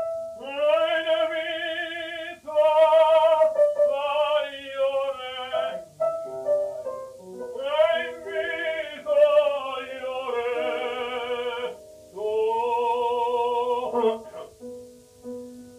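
Operatic tenor voice singing with wide vibrato in a study recording. The voice comes in suddenly and sings in phrases of a few seconds each, with short breaks between them, then gives way to softer held notes near the end.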